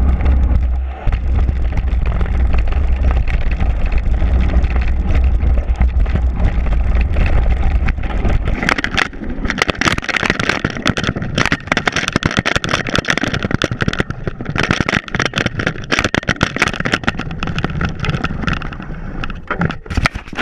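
Mountain bike ridden fast on a dirt trail: wind buffeting the action camera's microphone gives a steady low rumble, with tyre and trail noise over it. About eight seconds in, the rumble stops. A run of crackling, clatter and knocks follows as the bike slows and is handled among dry leaves.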